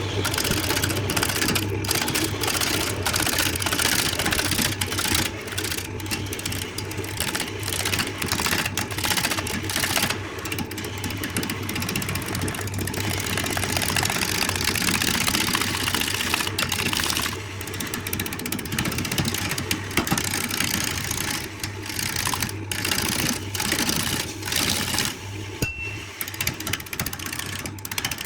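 A power tool's motor running steadily, with a constant low hum and a rapid mechanical rattle.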